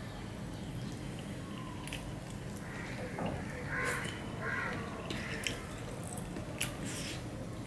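Close-up eating sounds of a man chewing a mouthful of fish curry and working the food with his fingers on a steel plate, with a few sharp clicks near the end. A crow caws a couple of times in the background around the middle.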